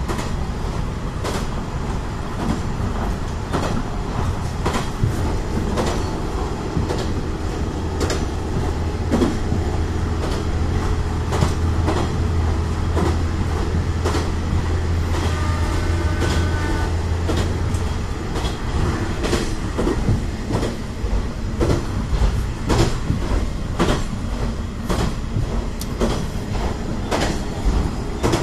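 Kanto Railway diesel railcar running along the line: a continuous rumble with wheels clicking over rail joints. A low engine drone swells for about ten seconds in the middle.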